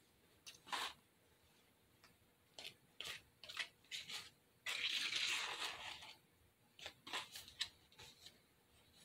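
Metal spoon stirring and scraping a mix of lightweight spackle and flour in a plastic tub: a run of short scrapes, with one longer scrape about five seconds in.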